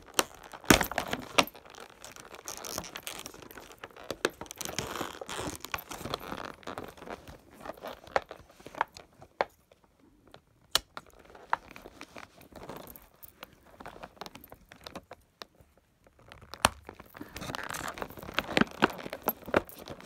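Plastic toy packaging rustling and crinkling as a fashion doll is freed from its box, with sharp clicks and snips of scissors cutting the plastic ties and holders. The handling is busiest at the start and again near the end, with isolated clicks in a quieter stretch between.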